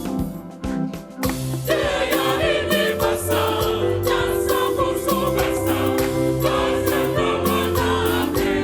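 Gospel choir singing with band accompaniment of bass, drums and keyboard. The band plays alone at first, drops briefly, then the choir comes in about a second and a half in.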